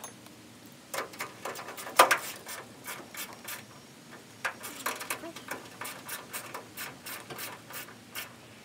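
Irregular clicks and knocks of hand work on the Jeep's hood latch hardware, with one sharp knock about two seconds in.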